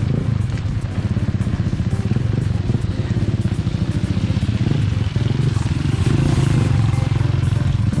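Motorcycle engines running close by, a steady, fast putter that grows a little louder about six seconds in.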